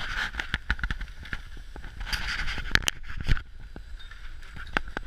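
Sliding over hard-packed snow: a steady scraping hiss, broken by many short clicks and knocks, with a louder cluster of them about two to three seconds in.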